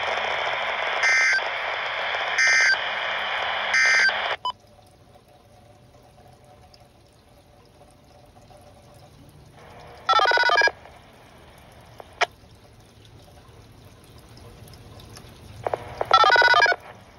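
Uniden Bearcat BC75XLT handheld scanner: radio hiss from its speaker with three short key beeps, cut off sharply about four seconds in as it is switched to scan. Then, while scanning, two short buzzy tone bursts from picked-up transmissions, about ten and sixteen seconds in, with a few sharp clicks.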